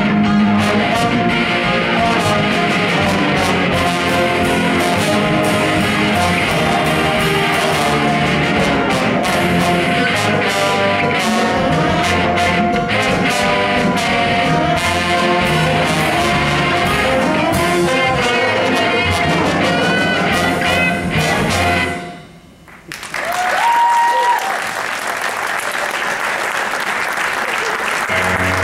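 A jazz band with saxophones, brass and electric guitar playing the last bars of a tune, stopping together about 22 seconds in. After a brief pause the audience applauds.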